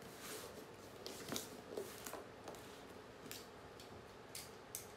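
Quiet handling sounds around a taped cardboard shipping box on a wooden floor: scattered soft taps, rustles and scrapes as hands touch the box and a person settles beside it, with short sharp clicks near the end as a box cutter is picked up.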